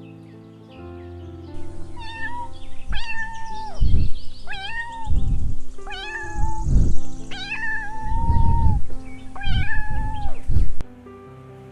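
Domestic cat meowing repeatedly, about half a dozen meows a second or so apart, one of them drawn out, mixed with loud low thuds, over background music.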